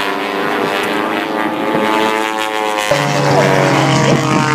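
Piston engines of several propeller airplanes flying in formation, a steady multi-toned drone whose pitches shift and bend as the planes pass; a lower engine note comes in about three seconds in.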